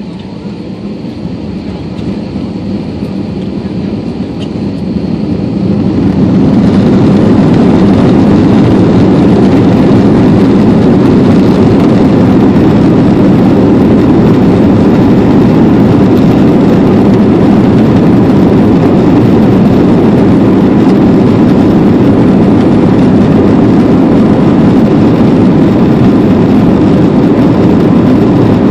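Aircraft engines spooling up to takeoff power, growing louder over the first six seconds, then a steady, very loud rush of engine and airflow noise through the takeoff roll.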